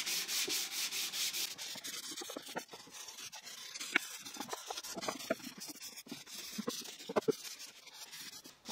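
Hand sanding pine with 220-grit sandpaper: rapid back-and-forth rubbing strokes for about two seconds, then lighter, intermittent rubbing. A few small knocks come from the wooden piece being handled.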